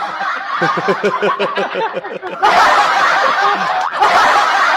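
People laughing: a quick run of short ha-ha pulses, then louder, denser laughter from about two and a half seconds in.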